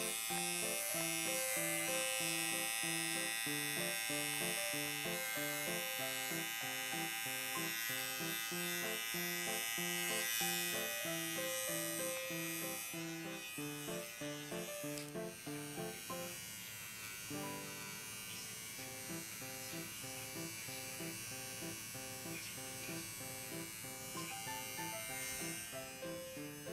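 Small electric pet hair clipper buzzing steadily as it trims the long fur around a cat's paw pads, over background music with a steady repeating melody. The clipper buzz fades out about halfway through, leaving mostly the music.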